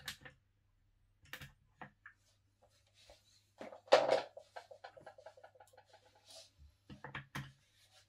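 Plastic knocks and clicks from office chair casters being handled and fitted to the chair's five-star base. A loud knock comes about four seconds in, followed by a rapid rattle lasting about two seconds, and more knocks near the end.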